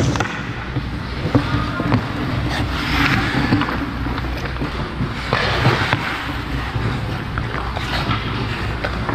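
Ice hockey goalie's skate blades scraping and carving the ice close by. There are two louder scrapes, about three seconds in and about halfway through, and a few short sharp clicks in between.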